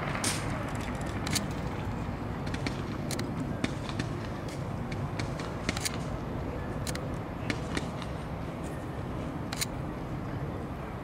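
Steady outdoor city hum with scattered short, sharp crackles and pops, in a lull between fireworks bursts.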